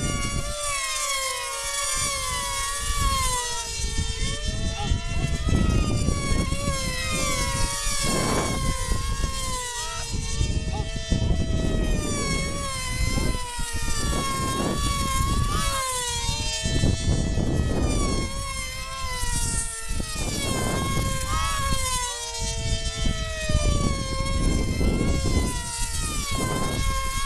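Several F3D pylon-racing model planes' small two-stroke glow engines screaming at high revs, their pitch sweeping up and down again and again as the planes pass on each lap, two or more at once. Gusts of wind rumble on the microphone underneath.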